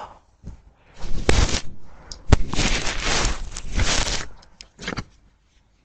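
Scratchy rustling and scraping close to a doorbell camera's microphone, in several bursts with a few sharp clicks among them.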